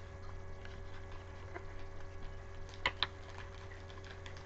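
Trading cards being handled: a few faint ticks and taps, two close together about three seconds in, over a steady low hum.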